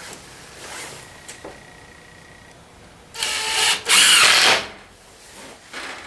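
Cordless drill driving a 1 5/8 inch screw through a pine runner into a 2x4, in two short whining runs, one just after three seconds in and the next right after it.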